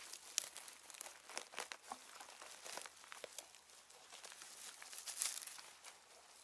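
Rustling and crackling close to the microphone, with many scattered sharp clicks and snaps. A louder burst of crackling comes about five seconds in.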